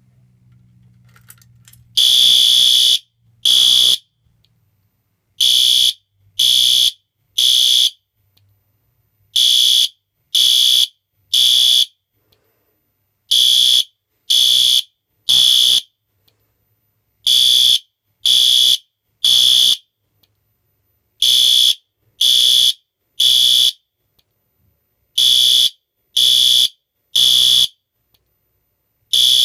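System Sensor P2R horn strobe sounding its horn in the temporal-3 pattern: three loud, high beeps, then a pause, repeating about every four seconds. This is the standard fire evacuation signal. The horn starts about two seconds in.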